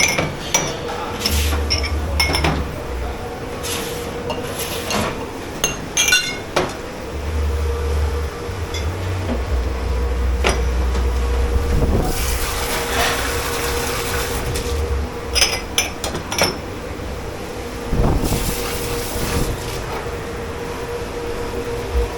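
Dishes and glassware clinking and clattering as they are handled at a dish station, with two short bursts of water spray, about halfway through and again near the end. A steady hum runs underneath.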